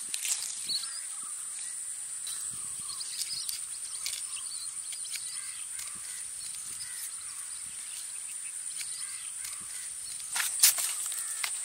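Rural open-air ambience: a steady high-pitched insect drone with scattered bird calls. A few sharp crackles of dry palm leaf being handled come about ten and a half seconds in.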